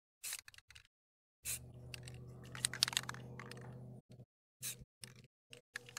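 Aerosol spray paint can in use: a few clicks, then a steady spray of about two and a half seconds with crackling clicks over it, followed by more scattered clicks.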